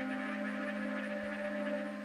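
Ambient background music of long, steady held tones, with a fluttering higher texture that sounds like a croaking chorus.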